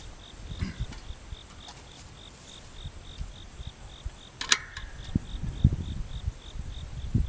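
Crickets chirping in a steady pulse, about three chirps a second. About four and a half seconds in there is a single sharp click with a short ring, and some dull low thumps follow.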